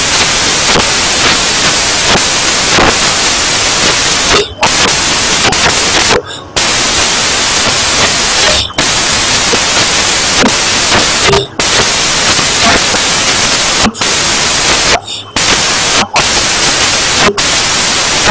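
Loud, steady static-like hiss that covers every pitch evenly. It cuts out briefly about eight times, every one to three seconds.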